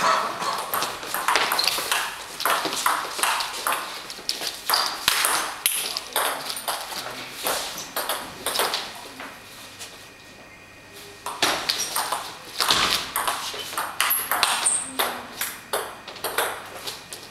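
Table tennis ball clicking off rackets and the table in quick rallies, with a pause of a second or two about two-thirds of the way through before play starts again.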